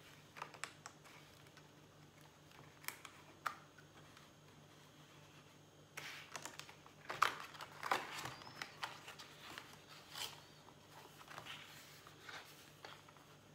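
A blade scratching and ticking as it cuts round a butterfly in a sheet of printed paper, with the paper rustling as it is handled. Faint, with a busier run of scratches about halfway through.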